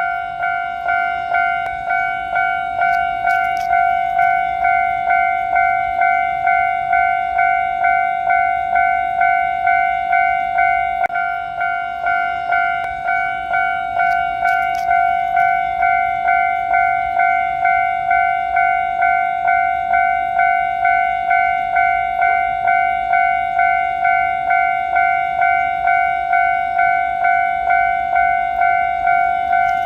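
Japanese railway level-crossing warning bell ringing its steady 'kan-kan' alarm, a ringing tone struck about three times every two seconds.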